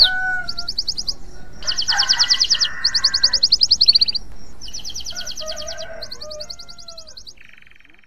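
Male domestic canary in breeding condition singing: a string of fast trills, each a rapid run of identical repeated notes, changing to a new trill about every second, with a few lower notes mixed in. The song fades out near the end.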